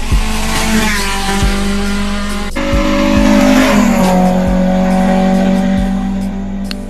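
Race car engine at a hill climb, mixed with background music that has a slow, steady kick-drum beat. The pitched tones change step-wise about two and a half seconds in and again about four seconds in.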